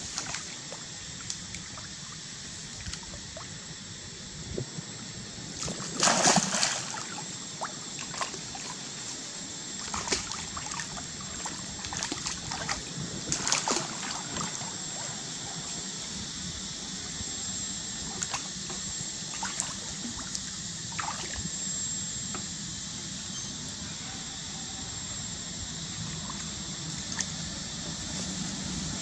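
Water splashing and sloshing as monkeys swim in a pond, with a steady trickle and scattered small splashes; the loudest splash comes about six seconds in and another a little before halfway.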